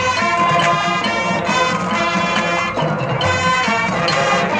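High school marching band playing its field show: brass chords over percussion.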